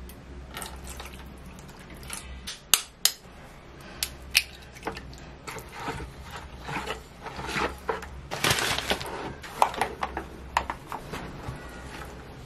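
A wooden spoon and then a spatula stirring in a plastic mixing bowl while chapati dough is started, first in water and oil, then in flour. There are scattered knocks against the bowl and scraping swishes, over a low steady hum.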